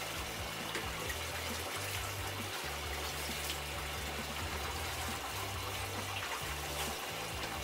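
Running water in a bathtub as a German Shepherd's coat is rinsed: a steady watery hiss. Background music with a low bass line underneath.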